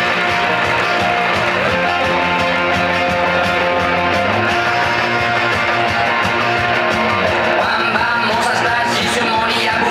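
Rock-style music with guitar.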